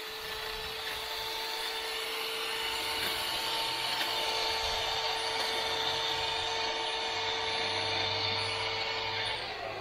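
Power hedge trimmer running with a steady high whine while cutting back a bush, then switched off near the end, its whine falling away as it winds down.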